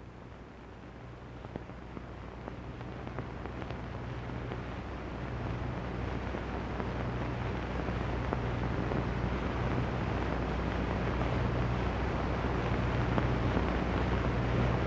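Steady hiss with a low hum from an old film soundtrack, slowly growing louder.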